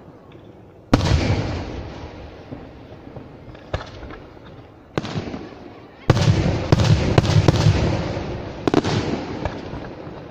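Aerial fireworks shells bursting in a pyrotechnic display. A loud bang comes about a second in, then single bangs near 4 and 5 seconds, then a quick string of bangs from about 6 to 9 seconds, each trailing off in an echoing tail.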